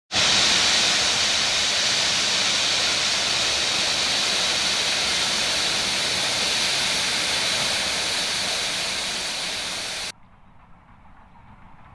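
Steam locomotive standing at a platform letting off steam: a loud, steady hiss that cuts off suddenly about ten seconds in.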